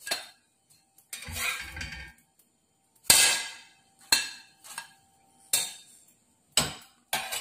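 Steel spatula scraping across an iron dosa tawa and clinking against a ceramic plate as toasted sandwiches are moved onto the plate: a knock, a scrape about a second in, then a run of sharp clinks about once a second, each ringing briefly.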